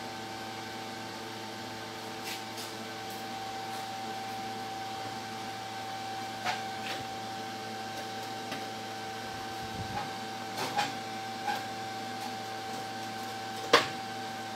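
Steady hum of a running machine with a held whine, and a few light metal clicks in the second half. Near the end comes a sharp metal clank as pliers grip the steel test piece.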